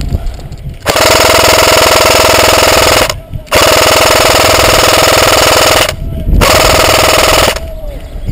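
Airsoft electric rifle firing on full auto close to the microphone: three long bursts of about two seconds, two and a half seconds and one second, each a fast, even rattle.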